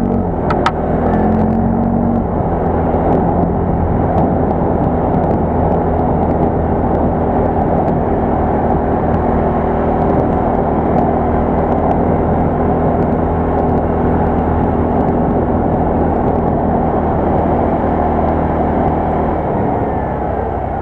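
Quad bike engine running steadily under way, with a continuous drone and rumble; the deepest part of the rumble fades about a second before the end.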